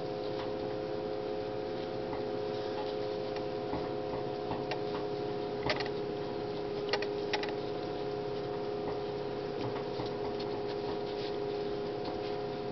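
Light scattered clicks and taps of fingers pressing polymer clay crumbles into a silicone mold, with three sharper clicks about six to seven and a half seconds in, over a steady electrical hum.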